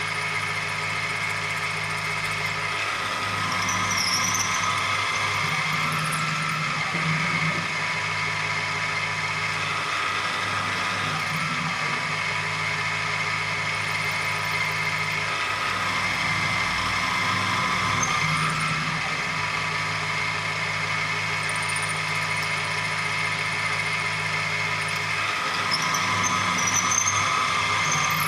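Optimum BF 20 L Vario CNC mill running through a machining cycle: a steady motor whine and hum whose low part shifts every few seconds, with a brief high squeal about four seconds in and again near the end.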